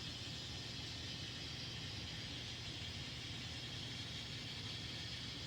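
N scale model train running along the track: a faint, steady low hum of the locomotive motors and wheels over a background hiss.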